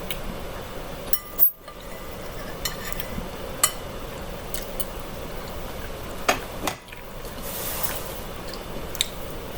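Fork clinking against a plate or bowl several times, sharp separate clicks while pasta is being eaten, with a brief soft hiss about three-quarters through.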